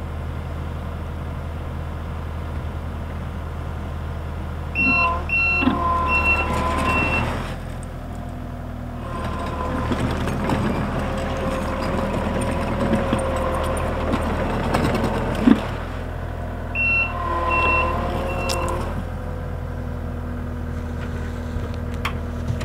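Skid steer engine running steadily, its backup alarm beeping in a short run of high beeps about five seconds in and again about seventeen seconds in. In between, the machine works harder for about six seconds, louder with a whine over the engine.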